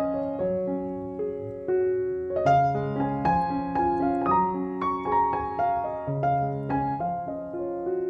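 Solo piano background music: a gentle melody of separate notes over sustained lower notes.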